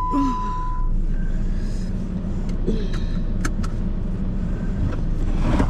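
Car interior with a steady low engine and road rumble. A single steady electronic warning beep stops about a second in, and a few sharp clicks come a little past halfway.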